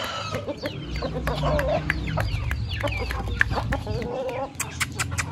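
Chickens clucking and calling, many short calls overlapping, with a few sharp clicks near the end.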